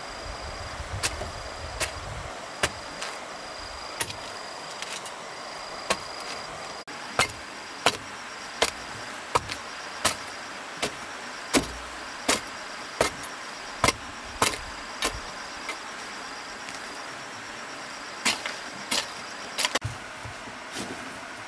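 A series of sharp knocks, often about one a second and irregular, with a pause of a couple of seconds late on. A faint high pulsing tone comes and goes behind them.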